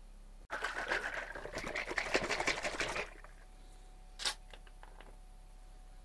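Liquid poured into a glass for about two and a half seconds, its pitch rising as the glass fills, followed a second later by a single sharp clink.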